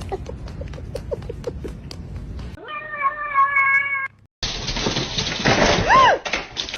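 Domestic cat meowing: one long, held meow about three seconds in, then after a short break a brief meow that rises and falls near the end. Before the meows there is a run of light clicks.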